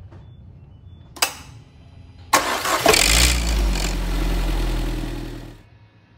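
Citroën C4 2.0 16V engine being cranked and started: a click about a second in, then a loud noisy burst as it catches, after which it runs steadily for about three seconds before shutting off. This is the cold-start noise, like a collapsed hydraulic lifter, that was diagnosed as a faulty variable pulley on the intake camshaft.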